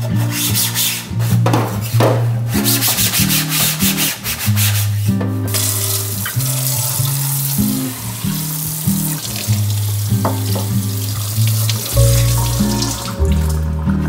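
A soapy sponge scrubbing a clear plastic fridge drawer in quick repeated strokes, then a steadier hiss of water and scrubbing in the sink. Soft background music with a bass line plays underneath.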